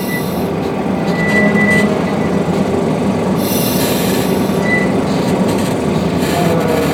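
Ride-on 15-inch gauge diesel locomotive with an Isuzu diesel engine and hydrostatic drive, rolling slowly through a switch with its brakes lightly applied. The engine and the wheels on the rails make a steady rumble, and a thin high wheel squeal comes and goes a few times.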